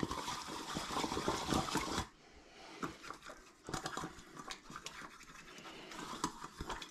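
Well-seasoned baking pans being rubbed with cooking oil by hand. A dense swishing scrub runs for about two seconds, then softer, scattered rubbing with light clicks.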